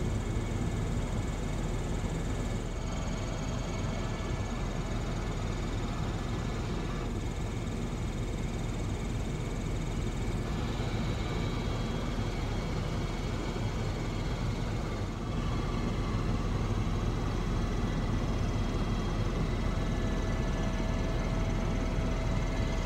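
Helicopter cabin noise in flight: a steady rumble and hiss of the rotor and engine heard from inside the cabin, with a faint steady whine above it.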